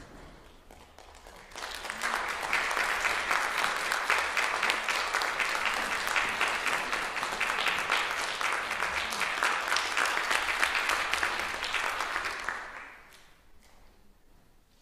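Audience applauding in a hall. The clapping starts about a second and a half in, holds steady, and dies away near the end.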